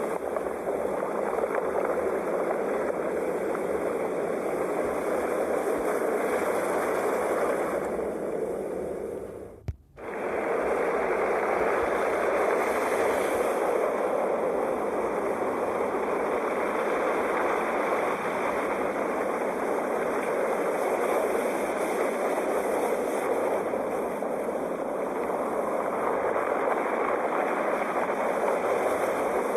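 Sea waves washing onto a shore: a steady wash of surf. It cuts out for a moment about ten seconds in, with a small click.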